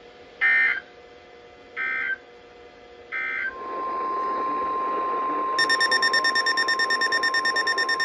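Weather radio sending three short data bursts, the SAME end-of-message code that closes a warning broadcast. Then an Eton FRX-5 weather radio plays the steady 1050 Hz NOAA Weather Radio warning tone over hiss. About five and a half seconds in, the radio's own rapid pulsing beep alert joins it.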